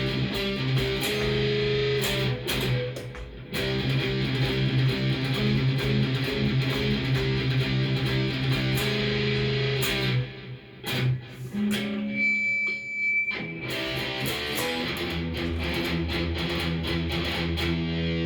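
Cort S-series electric guitar played through a Fender amplifier: strummed chords and picked notes ringing out. The playing breaks off briefly a little past halfway, then resumes with lower notes.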